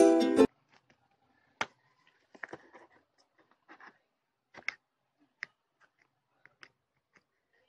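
Ukulele music cuts off half a second in. Then purple slime being poked and stretched by fingers makes scattered small sticky clicks and pops, the loudest about a second and a half in and near the middle.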